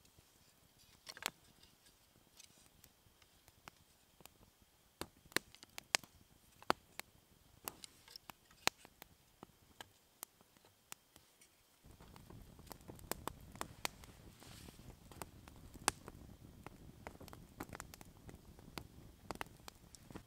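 Small wood fire of split kindling crackling, with irregular sharp pops and snaps. About twelve seconds in a low, steady rushing noise joins the crackle.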